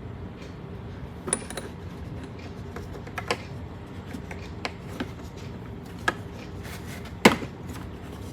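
Small impact sockets being handled and taken out of the kit case: scattered light clicks and knocks of hard parts against each other. The loudest knock comes near the end. A steady low hum runs underneath.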